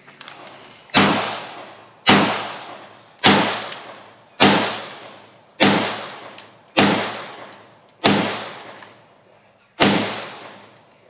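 Springfield Hellcat 9mm pistol fired eight times at a steady pace, a bit more than a second apart, with a longer pause before the last shot. Each shot is a sharp crack followed by a decaying echo.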